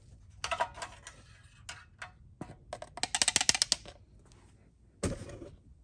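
Scattered clicks and taps from handling a lawn mower engine and a plastic oil-catch cup while the oil drains from the engine. A quick run of ticks comes about three seconds in, and a single knock near the end.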